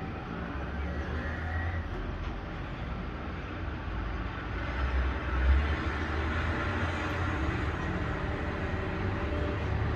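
Truck engine running with a steady low rumble, briefly louder about halfway through.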